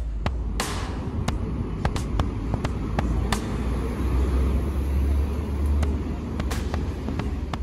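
Town-street ambience: a steady low rumble with many short sharp clicks scattered through it.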